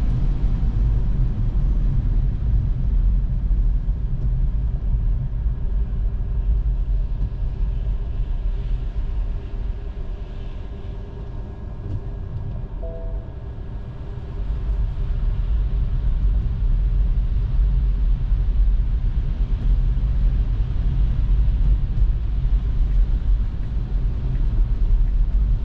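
Steady low road and tyre rumble inside an electric Tesla's cabin, driving on snowy streets. The rumble eases for a few seconds midway, then builds again.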